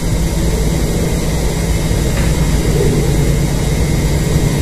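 A steady low mechanical hum with a constant low tone, unchanging and fairly loud.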